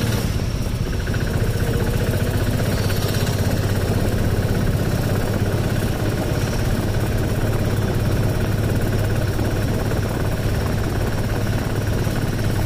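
A vehicle's engine running steadily, heard from on board while moving, with a constant low hum.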